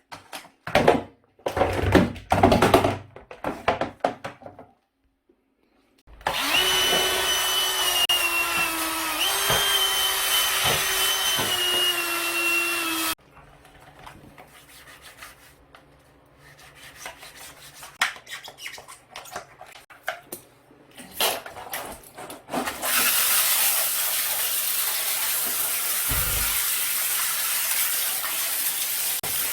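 Knocks and clatter of handling parts, then an electric power tool's motor running with a steady whine for about seven seconds. More light clatter follows, then a steady loud hiss for the last six seconds or so.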